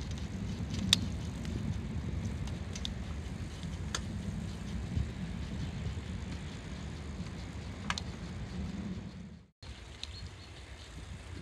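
Small-wheeled bicycle being ridden on a paved path: a steady low rumble of riding noise, with a few sharp rattling clicks from the bike. The sound drops out for an instant near the end.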